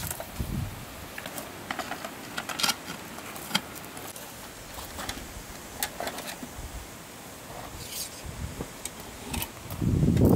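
Scattered light clinks and taps, a few a second at irregular intervals, of small hard objects being handled.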